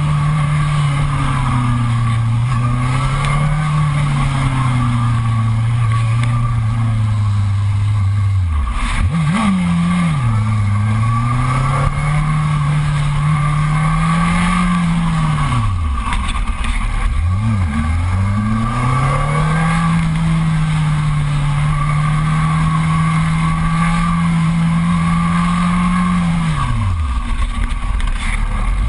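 Yamaha R1's inline-four engine running under throttle, its pitch rising and falling in long sweeps. The revs drop right off about a third of the way in, again past the middle and near the end, then climb back. Steady wind rush on the microphone runs underneath.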